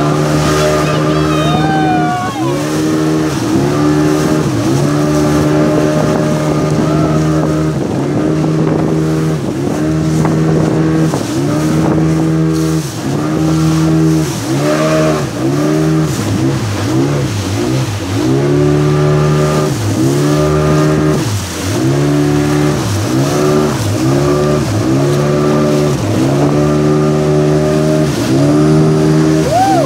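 Speedboat engine running hard. Its note repeatedly sags and recovers, about once a second through the second half. A few high falling whistle-like sounds come about a second in.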